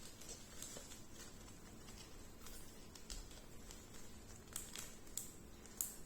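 Faint, scattered light clicks and taps from small slime-kit containers and tools being handled, with a few sharper clicks near the end.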